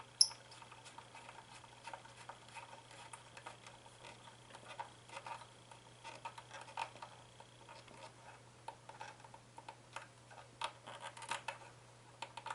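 Small scattered clicks and taps of hands fitting crimped wire clips onto a speaker's terminals, with one sharp click right at the start, over a steady low electrical hum.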